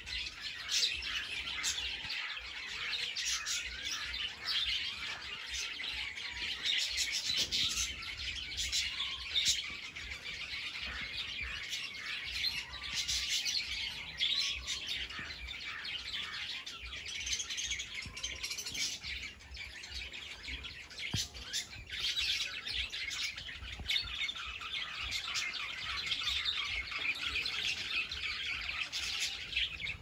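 A chorus of small birds chirping, many short high calls overlapping without a break, busiest near the middle and toward the end.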